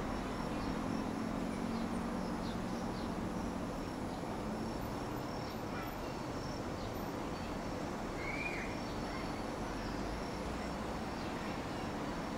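Evening outdoor ambience of a town: steady background noise with insects chirping faintly throughout. A low drone fades out about four seconds in, and there is a single short chirp a little past the middle.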